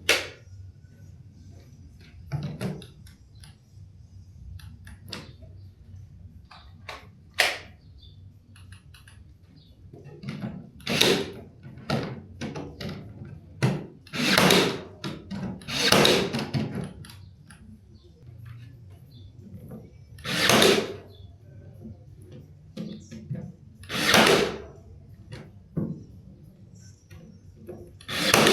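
Woodworking sounds while building a wooden planter box: scattered knocks and clatter, and several short noisy bursts of work on wood, each under a second long and coming every few seconds.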